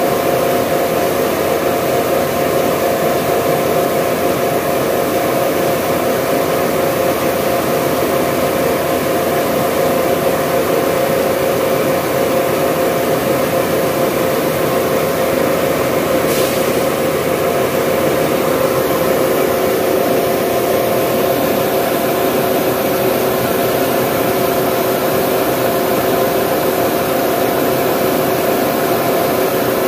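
Motor-driven corn dehulling mill running steadily and loudly, a constant machine hum with a rushing noise as shelled corn kernels pour through its chute during the first, skin-removing stage of milling.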